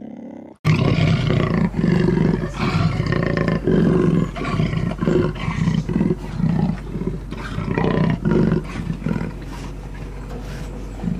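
A big cat roaring in a long run of short, rhythmic grunts, about two to three a second, growing fainter near the end.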